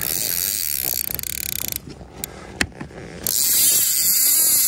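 Fly reel's click-and-pawl drag ratcheting in a fast buzz while a hooked fish is played. It runs for the first couple of seconds, pauses, then comes back louder a little past three seconds, its rate speeding and slowing.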